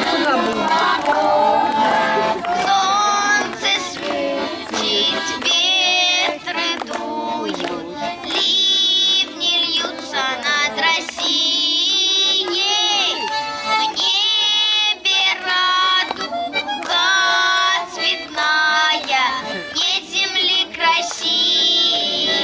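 Children singing a song in Russian, with accordion accompaniment.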